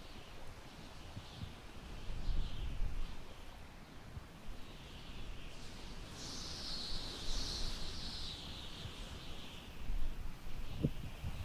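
Wind gusting through tall grass, with low buffeting rumbles and a high rustling hiss that swells about six seconds in and eases off after a few seconds. Faint high chirps sound in the background.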